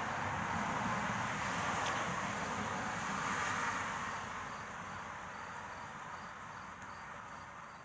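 A vehicle going by: a steady rush of road noise that swells about three seconds in and then fades away. Insects chirp in an even rhythm, about twice a second, from about halfway.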